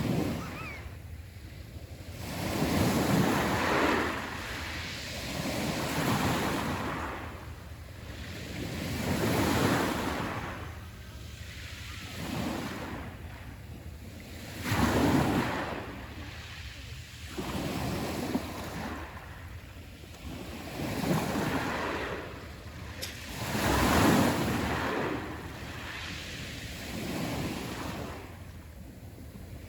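Sea waves breaking on the shore and washing back, each one rising to a rush and fading, one after another every few seconds.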